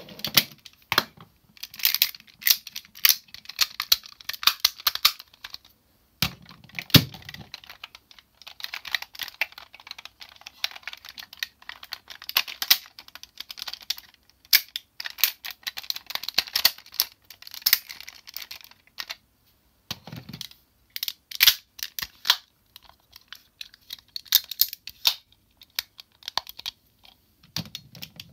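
Hard plastic parts of a DX Zyuohger cube-animal combining robot toy clicking, rattling and snapping together as they are folded and joined by hand. There are a couple of dull knocks, about six seconds in and again near twenty seconds.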